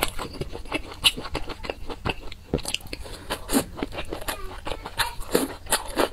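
A person biting and chewing fried dumplings: an irregular string of short crunches and wet mouth clicks.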